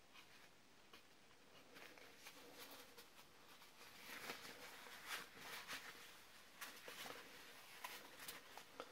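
Near silence, with faint, scattered rubbing and handling sounds from about four seconds in: dry kitchen paper working chromium oxide paste into the surface of a balsa strop.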